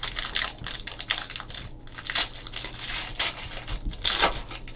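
Trading card pack wrapper crinkling and tearing as a pack is opened, with the cards being handled. It is a string of short crackles, louder about two seconds in and again near the end.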